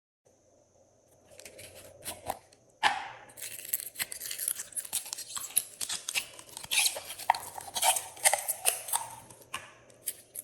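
Glossy slime being squished and mixed by hand, giving a dense run of sticky clicks, pops and crackles that starts about a second in.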